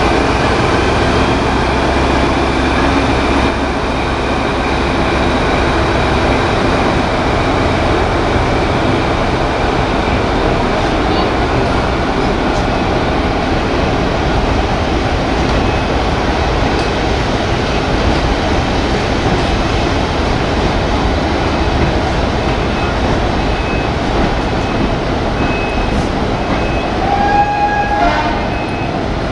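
A diesel-hauled heritage train of coaches and wooden goods vans rolling along a station platform: steady rumble of wheels and engine. From about halfway on, short high squeaks come about once a second from the running gear, with a louder squeal near the end.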